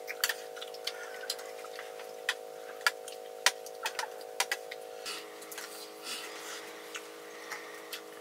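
Irregular sharp clicks and snaps of varying strength, over a steady hum of several tones that changes pitch about five seconds in.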